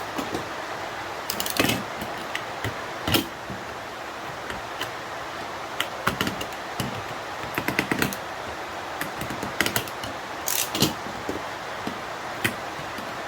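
Scattered clicks, taps and small rattles of hand tools and electronic parts being worked apart, with a few quick runs of clicks, over a steady background hiss.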